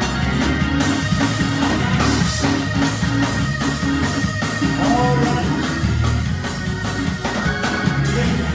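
Live church band music with drum kit, bass and guitar playing a steady groove, with a few brief sung phrases.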